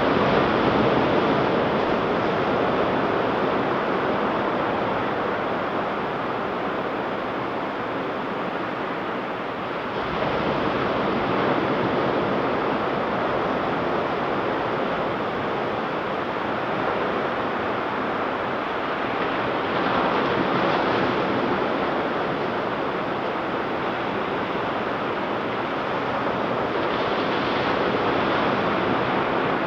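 Ocean surf washing on a beach, a steady rush that swells as a wave breaks about every ten seconds, four times.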